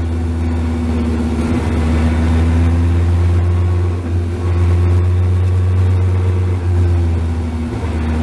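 Dodge Viper race car's V10 engine running at low revs on light throttle, heard from inside the cockpit: a steady low drone that eases off briefly a couple of times.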